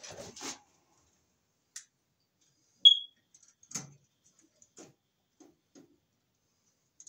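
Scattered small clicks and knocks of a hand tool working wire ends in a breaker panel, with one short high-pitched beep about three seconds in.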